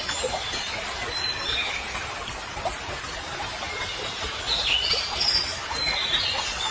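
Birds chirping in short high calls, more of them from about four and a half seconds in, over steady background noise.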